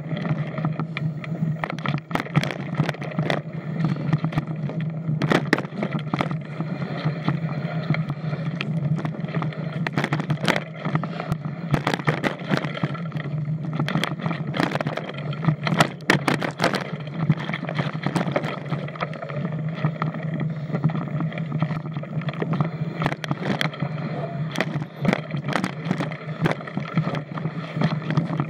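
Mountain bike riding fast down a dirt singletrack: a steady low tyre and wind rumble with frequent sharp knocks and rattles as the bike hits roots and bumps.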